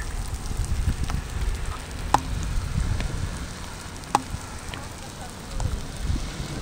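Hail and rain pattering during a ride, with a low wind rumble on the microphone and scattered sharp ticks of hailstones striking close by, two of them loud, about two seconds apart.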